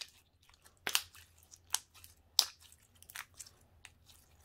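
Gooey slime being worked in the hands, giving several short sharp pops and clicks at irregular intervals, with the loudest three in the first half.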